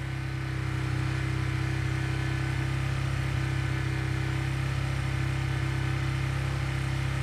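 Honda RS150's single-cylinder four-stroke engine with an aftermarket exhaust, held at a steady 4,500 rpm; the note lifts slightly about a second in and then stays level.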